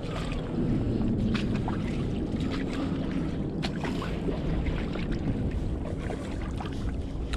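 Wind buffeting the microphone in a steady low rumble, with small waves lapping on a stony shore in scattered light splashes and ticks.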